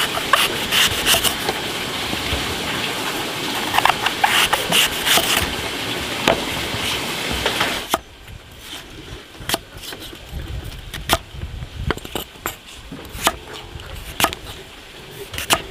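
Knife slicing through a firm peeled green fruit on a wooden cutting board: crisp cutting strokes, then from about halfway on, separate sharp knocks of the blade meeting the board roughly once a second.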